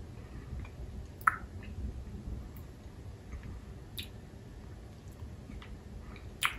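Chewing a sugar-shelled chocolate button with the mouth closed: soft wet mouth sounds with three sharp clicks, the loudest near the end.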